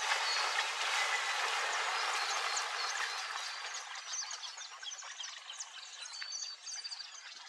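Many small birds chirping over a loud rushing noise. The noise swells up at the start and fades gradually over several seconds.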